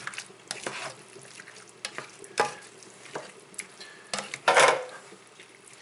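A utensil stirring thick diced vegetables and crushed tomatoes in a saucepan: wet squelches and scrapes against the pan, with a louder stroke about two and a half seconds in and the loudest one near the end.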